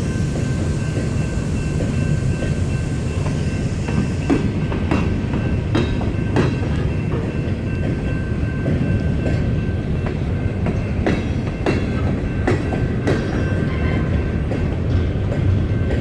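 Freight train cars rolling past at a crossing: a steady low rumble of wheels on rail, broken by irregular clacks as the wheels cross rail joints.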